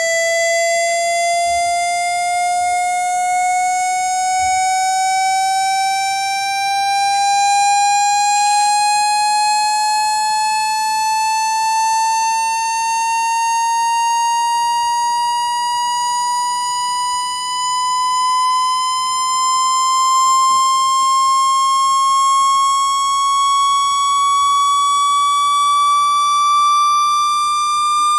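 Electronic speaker-cleaning tone, a buzzy synthetic note that glides slowly and steadily upward in pitch, meant to shake water out of a phone's speaker with vibration.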